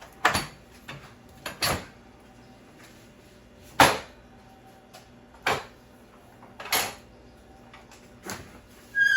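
A series of separate sharp knocks and clatters, about seven, at irregular intervals, with a short high squeak at the very end.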